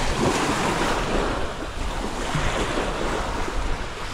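Small waves breaking and washing over a pebble shore in choppy water, with wind buffeting the microphone.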